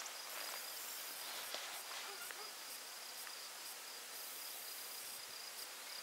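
Faint insects singing, a thin steady high-pitched drone over a light even hiss.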